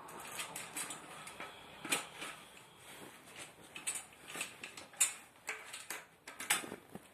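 Irregular clicks and light knocks, the loudest about two, five and six and a half seconds in, from bicycle parts being handled during tyre fitting.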